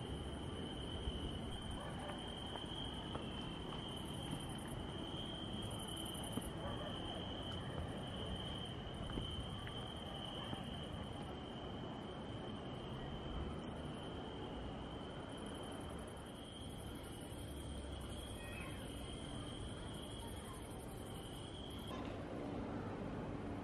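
Crickets chirping in one steady high trill, with a second, higher insect trill and a low background rumble under them. About 22 seconds in, the crickets cut off and a low steady hum takes over.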